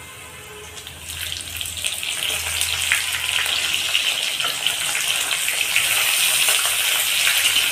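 Chopped red onions sizzling as they drop into hot oil in a metal kadai. The sizzle builds from about a second in to a steady hiss with small crackles.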